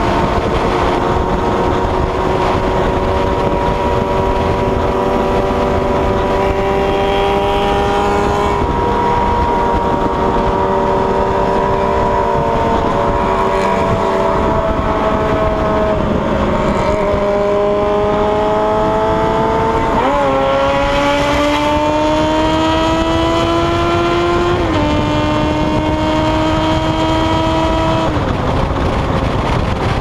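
Motorcycle engine running at highway speed with wind rushing over the microphone. The engine note climbs slowly, then drops sharply at a gear change about two-thirds of the way through and climbs again.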